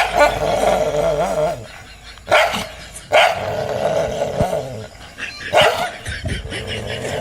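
A dog barking four times, a few seconds apart, with growling in between, typical of a dog reacting to its own reflection in a mirror.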